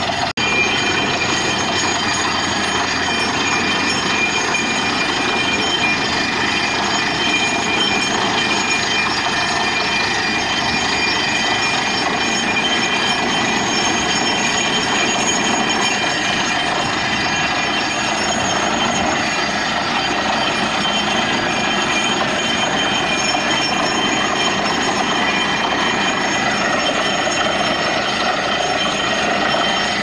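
Truck-mounted borewell drilling rig running loudly and steadily while it drills: the down-the-hole air hammer pounds and compressed air blows a slurry of water and rock cuttings up out of the bore.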